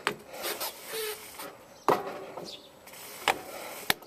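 An ICE Vortex recumbent trike pulling away with its handbrake still on: four sharp clicks and knocks over a low rattle, the loudest about two seconds in and near the end.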